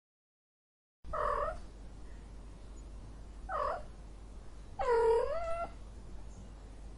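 Angry domestic cat yowling three times: two short cries, then a longer, drawn-out yowl about four seconds in.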